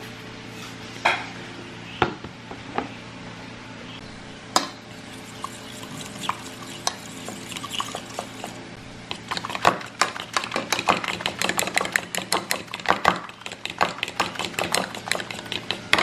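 Metal spoon stirring a frothy liquid mixture in a ceramic bowl, clinking quickly and repeatedly against the bowl through the second half; a few single knocks come earlier.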